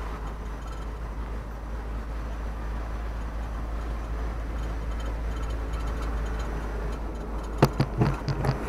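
Steady road and engine noise heard inside the cab of a slowly moving vehicle. Near the end, a few short knocks or clatters rise briefly above it.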